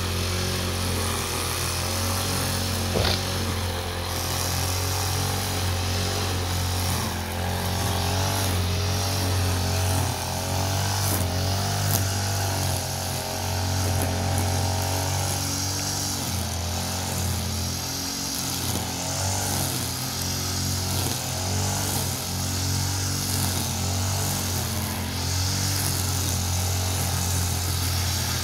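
Small petrol brush cutter running at working speed, its line head cutting grass. The engine note wavers up and down as the load and throttle change, and a few sharp ticks cut through it, one about three seconds in and two near the middle.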